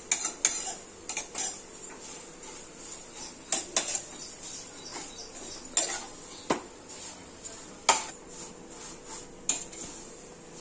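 Steel spoon scraping and knocking against a black kadhai while stirring vermicelli roasting in ghee. The strikes come irregularly, a few much sharper than the rest.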